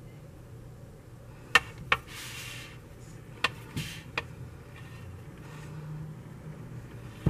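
Wire beaters of a KitchenAid hand mixer working through thick batter in a mixing bowl: about five sharp knocks of the beaters against the bowl between about one and a half and four seconds in, with a brief scraping rasp near two seconds, over a low steady hum.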